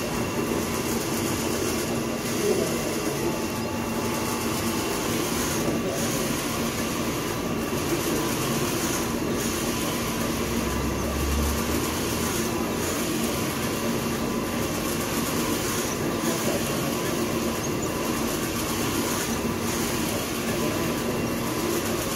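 Machinery running steadily, with a steady hum and a light rhythm that repeats about every second and a half to two seconds.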